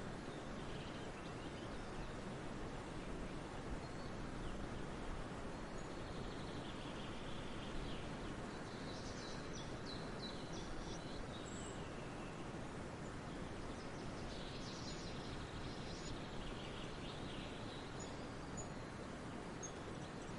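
Nature ambience: a steady outdoor hiss with bursts of bird chirps and calls, busiest about halfway through and again a few seconds later.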